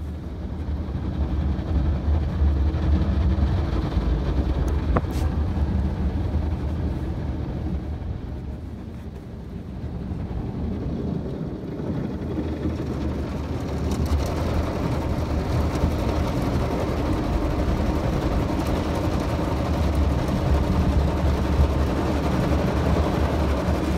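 Automatic car wash running, heard from inside the car's cabin: a steady low rumble, with a rushing noise that grows louder about 14 seconds in.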